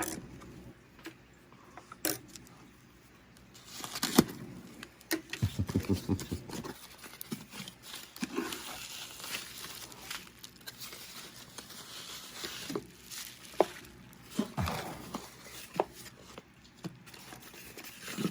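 Packaging being opened by hand: wrapping crinkling and tearing, with scattered taps and knocks as the contents are handled.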